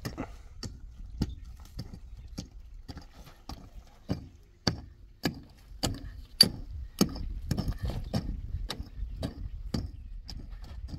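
Short-handled mattock striking dry, stony soil: sharp chopping thuds at a steady pace of a little under two strikes a second, some harder than others.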